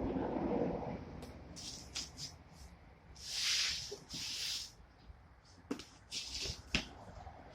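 Cardboard box and packaging being opened and handled: rustling and scraping, with a longer rasping scrape about three and a half seconds in and a few sharp clicks or knocks near the end.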